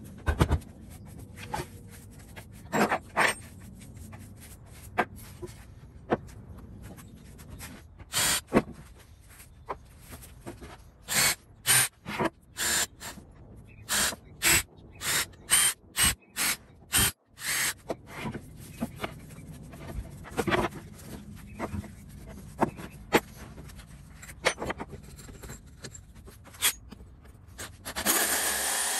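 Cordless drill boring small pilot holes through a pine board in a series of short bursts of under half a second each, with pauses between. Near the end a hole saw on the drill starts cutting into the board with a steady, louder noise.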